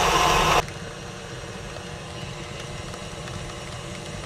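Electric stand mixer running with its paddle, beating cream cheese and sugar. It is loud at first, then drops abruptly to a quieter steady hum about half a second in.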